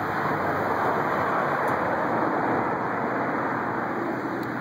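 Steady rushing noise of distant road traffic, with no engine note from the parked motorcycle.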